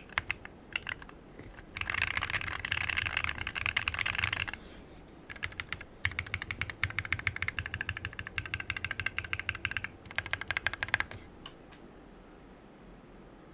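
Typing on a mechanical keyboard: lubed and filmed Cobalt POM linear switches in a Planck Rev6 ortholinear board with a steel plate and aluminium case, under PBT keycaps. A few scattered keystrokes give way to a very fast flurry, a short pause, then another run of typing that stops about eleven seconds in.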